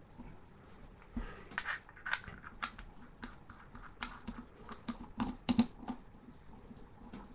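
Light metallic clicks and taps of a stainless steel rebuildable dripping atomizer deck and its small parts being handled in the fingers, in a quick irregular run from about a second in until about six seconds in.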